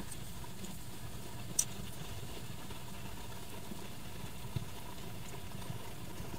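Steady low hum of room noise with a few faint clicks from a crochet hook and yarn being worked; the sharpest click comes about one and a half seconds in.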